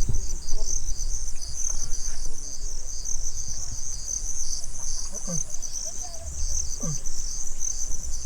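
A steady chorus of insects, crickets by their sound, trilling high with an even pulse several times a second over a low rumble.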